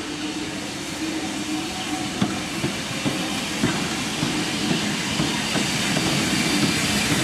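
Bulleid light pacific 34027 'Taw Valley' drifting in slowly tender-first, with steam hissing and a few sharp clanks from its wheels over the rail joints and points, growing louder as it nears.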